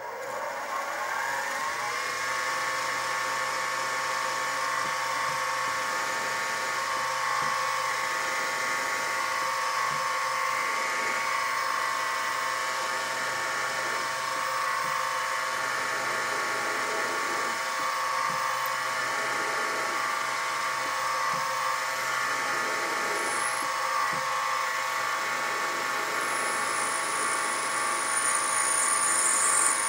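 Sieg SX2P mini mill's spindle motor spinning up with a rising whine over the first two seconds, then running steadily while a 2.7 mm tapping drill bores into a brass bearing block. A thin high squeal joins in near the end.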